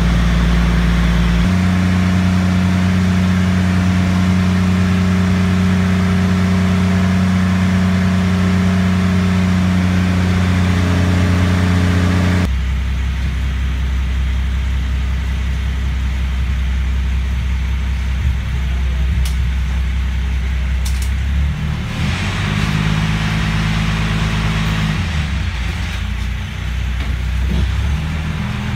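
Passenger ferry's engine running with a steady, loud hum, heard from inside the cabin. About twelve seconds in its note drops suddenly and turns quieter as the boat comes in beside the pier, and some hissing noise joins it later on.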